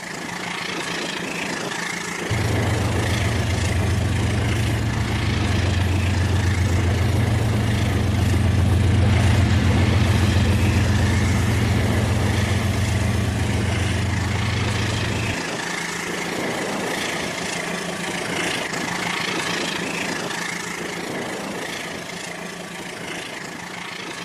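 Rail King battery-powered toy train running, with a steady high motor hum. A low, engine-like drone comes in about two seconds in and stops about fifteen seconds in.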